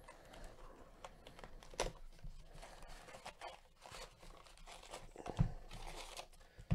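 Trading-card packs in crinkly wrappers rustling and crackling as a stack of them is lifted out of a cardboard hobby box and set down, with a few soft knocks of packs and cardboard, the loudest near the end.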